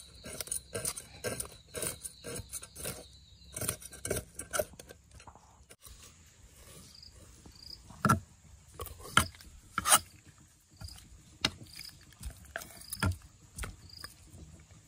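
Fish scales being scraped off with a blade in quick rasping strokes, which stop after about four seconds. Later, a few sharp knocks of a knife and fish on a wooden cutting board, while an insect chirps at a steady pace, about one high chirp a second.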